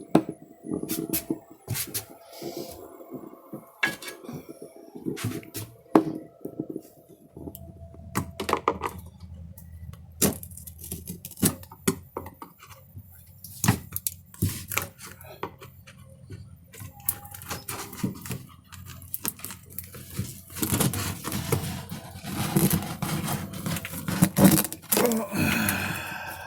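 Irregular clinks, knocks and scrapes of hand tools and screws against a boat's port window frame as the siliconed-in window is worked loose and pried out.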